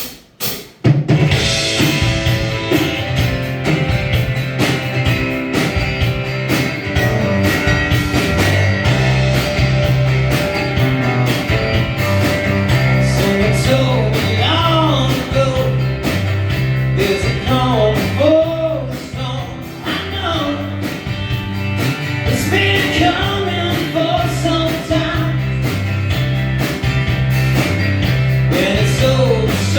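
A live rock band starts playing about a second in, with electric guitars, bass and drums keeping a steady beat. A sung melody line comes in over the band about halfway through.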